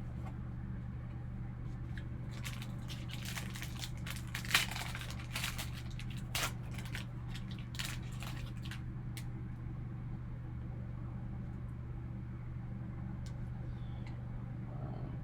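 Crinkling and tearing of packaging as a sealed trading-card box is opened, in a cluster of short rustles and crackles with one sharp tear, over a steady low hum.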